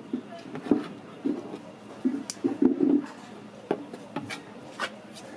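Metal spatulas scraping and smearing a thick white spread over a stack of toast, with several sharp taps of the blades against a plastic cutting board.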